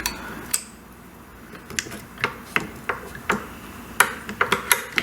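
Irregular light metallic clicks and taps, about a dozen over a few seconds, from small metal parts and hand tools being handled while fitting parts during engine reassembly.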